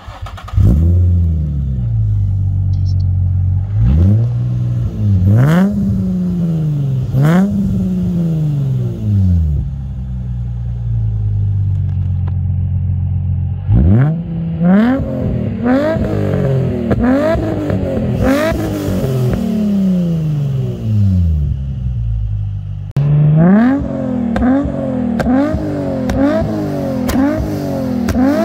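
Nissan 350Z's 3.5-litre V6 through a Circuit Werks single-exit exhaust, idling and being revved. There are three separate revs in the first several seconds, then a steadier idle, then rapid repeated throttle blips through the rest.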